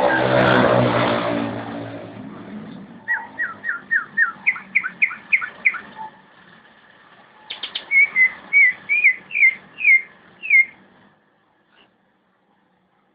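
A leafbird (cucak ijo) singing series of short, clear, falling whistled notes, several a second, in two bursts with a pause between. At the start a loud low droning sound fades out over the first two or three seconds.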